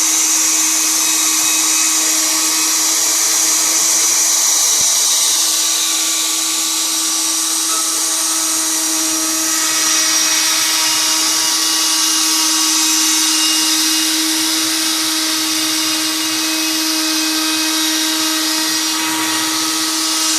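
Bosch 1617EVS router motor running at a steady high speed: a constant whine with strong hiss above it. The hiss changes character about halfway through.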